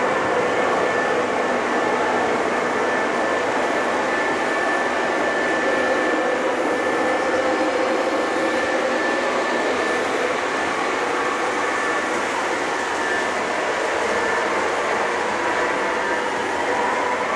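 O gauge model diesel locomotive running steadily along the track, with a constant hum and wheel noise.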